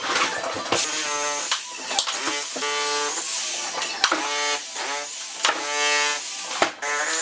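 Background music carrying a pitched melody line, the notes changing about once a second.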